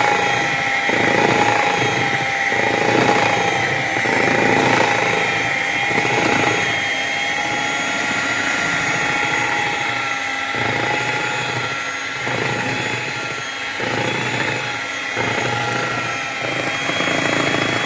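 Electric hand mixer running at low speed, its twin beaters churning thick chocolate cake batter as flour is mixed in: a steady motor whine over an uneven churning of the batter in a plastic bowl.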